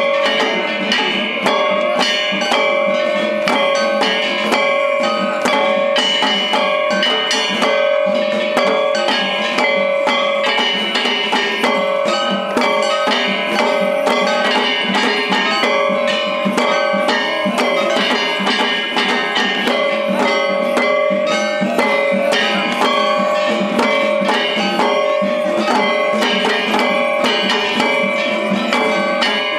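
Shishimai lion-dance accompaniment: taiko drums struck in a fast, unbroken rhythm, with steady ringing metallic tones sounding over the beats.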